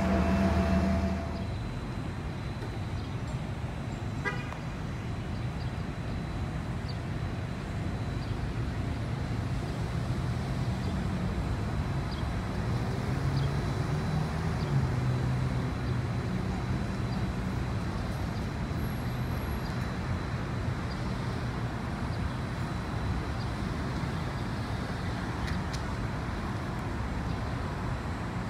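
City street traffic: a steady low rumble of motor vehicles running and passing. A loud steady pitched tone, like a vehicle horn, sounds for about the first second and then cuts off.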